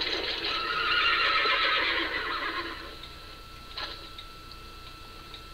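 A horse whinnying on a film soundtrack, heard through a TV speaker, fading out about three seconds in. A single sharp click follows, and then a faint thin steady tone.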